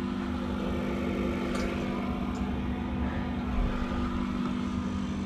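Diesel air heater running with a steady hum and low rumble, turned down to a low setting, with a couple of faint ticks.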